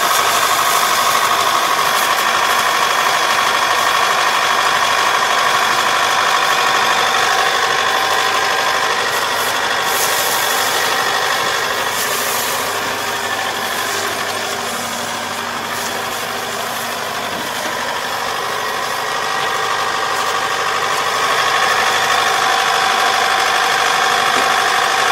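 Kubota ER470 four-row combine harvester's diesel engine and threshing machinery running steadily under load, with a constant whine over the engine. The sound eases a little for a few seconds past the middle, then comes back up.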